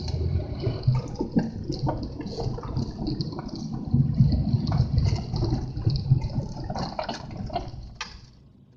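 Strong gusty wind buffeting the microphone: an uneven rumble of gusts with a hiss above it, dying away near the end.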